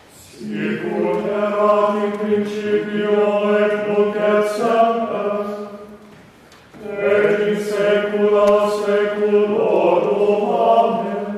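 Choir singing chant in two long phrases, with a short break about six seconds in and a steady low note held beneath.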